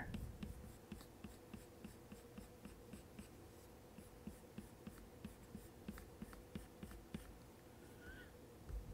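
Faint taps and light scratching of an Apple Pencil tip on an iPad Pro's matte screen protector as he draws short strokes, a few short ticks a second, over a faint steady hum.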